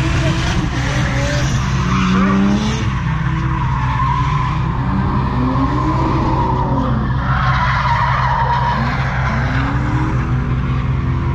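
Ford Falcon drift car sliding, its tyres squealing over the engine as the revs rise and fall again and again; the squeal is strongest about three-quarters of the way through.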